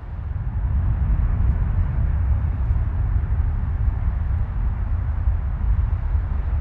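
Jet engines of a Boeing 737 rolling along the runway for departure, a loud, steady deep rumble with a softer hiss above it.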